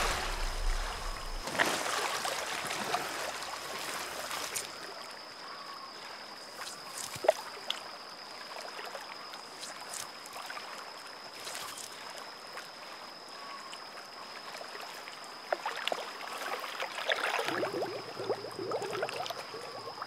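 Water splashing and sloshing as an alligator thrashes and chews prey at the surface, with a single sharp knock about seven seconds in and more splashing from about three-quarters of the way through. A thin steady high tone sounds throughout.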